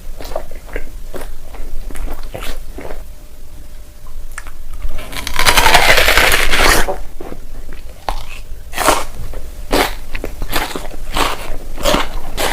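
Close-miked eating: crisp bites and crunchy chewing, in quick sharp cracks, with a dense, loud burst of crunching lasting about a second and a half around the middle.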